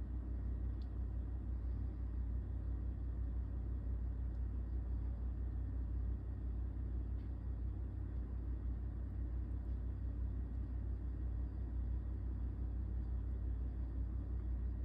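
Steady low hum with an even background hiss and a few faint ticks, with nothing changing through the stretch.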